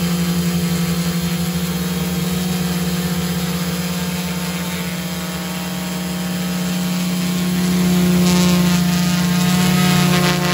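TBS Discovery quadcopter's brushless motors and propellers running with a steady buzzing whine. It gets louder about eight seconds in.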